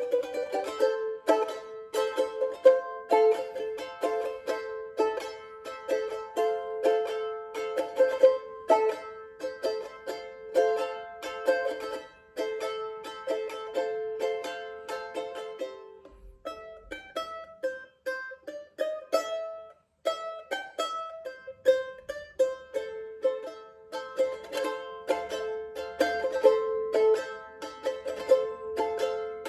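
Tahitian ukulele played solo in quick, even strokes over a held note, thinning out to sparser single notes for a few seconds in the middle before the fast strumming returns.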